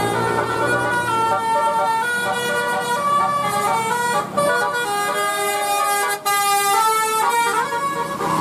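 Bus telolet horn, a set of air-horn trumpets, playing a melody of quick stepped notes, with a softer sliding tone about halfway through.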